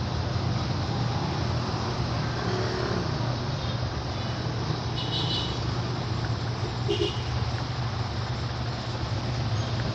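Steady low hum under a constant background hiss, with a couple of faint, short high-pitched tones about halfway through and again a couple of seconds later.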